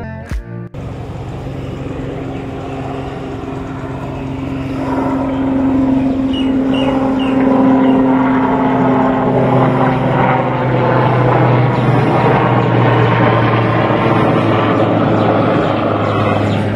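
Helicopter flying overhead, its rotor and engine noise growing louder over the first few seconds and then holding steady.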